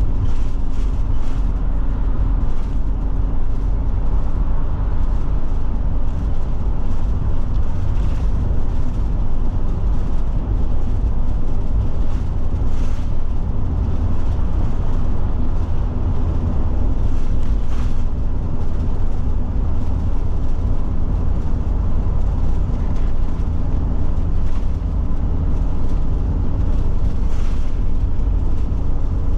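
Steady low road and drivetrain rumble inside a Forest River Forester motorhome's cab at road speed, with a few faint ticks or rattles now and then.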